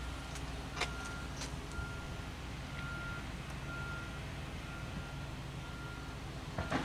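Vehicle backup alarm beeping: a single steady tone about half a second long, repeating roughly once a second, over a low engine rumble.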